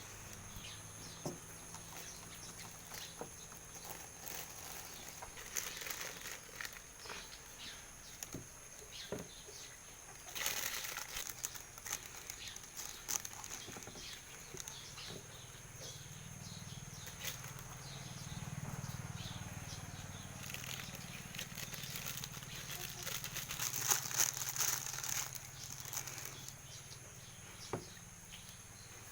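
Chickens, cats and a goat feeding on bread: scattered pecks and clicks with rustling, including two louder rustling bursts, one about a third of the way in and one near the end.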